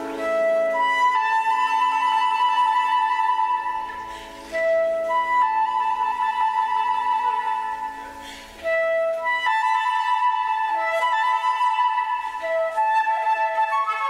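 Concert flute playing an ornamented solo line of held, warbling notes in three phrases, with short breaks about four and eight and a half seconds in, over a soft grand piano accompaniment.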